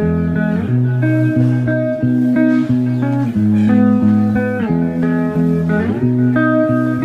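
Background instrumental music: a plucked guitar melody over a bass line.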